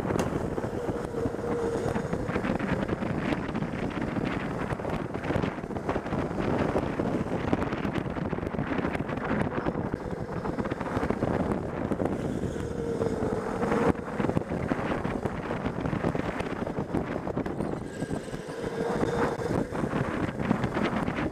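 Electric go-kart driven hard around an indoor track, heard from onboard: steady wind buffeting on the microphone and kart rattle, with a faint motor whine that swells and fades three times.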